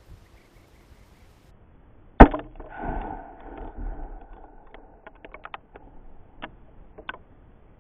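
A 3 lb Tannerite charge detonating under a pumpkin: one sharp blast about two seconds in, followed by a second or two of rumbling and then a scatter of sharp clicks.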